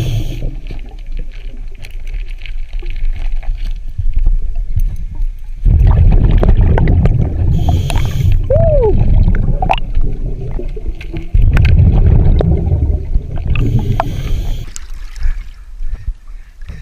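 Scuba diver breathing underwater through a regulator. A short hiss on each inhale, about every six to seven seconds, alternates with long low rumbling bubble bursts on each exhale.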